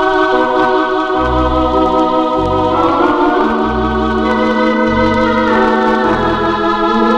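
Organ music: sustained organ chords over a bass line of low notes about once a second, the chord changing about three seconds in, with no singing.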